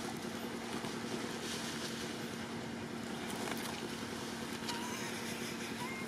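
Steady hum of a running motor, with a few faint clicks and rustles.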